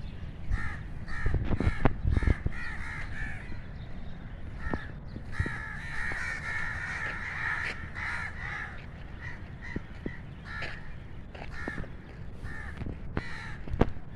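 A flock of crows cawing, many short harsh calls overlapping, thickest in the middle of the stretch and thinning out toward the end.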